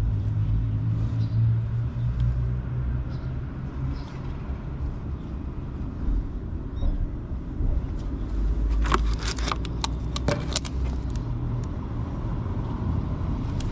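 Steady low rumble of a motor vehicle engine running, with a short run of sharp clicks about nine to ten seconds in.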